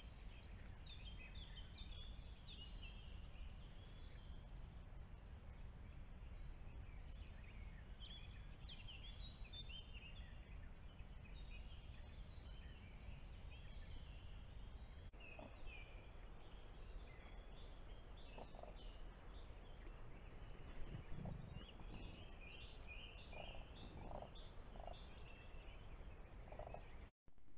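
Common cranes at a forest pond giving short, low, soft contact calls from about halfway through, several in quick succession near the end, while their chick forages nearby. Songbirds chirp throughout over a faint low rumble. The sound drops out for a split second just before the end.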